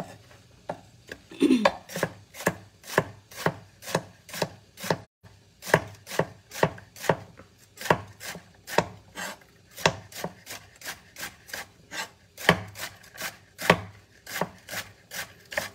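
Chef's knife slicing bitter melon (ampalaya) on a wooden cutting board, the blade knocking on the board about twice a second.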